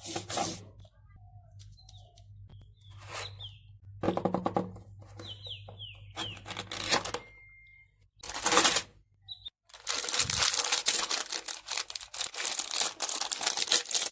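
Packaging being handled and torn open: scattered short rustles and crinkles, then a long stretch of continuous crinkling and tearing in the second half.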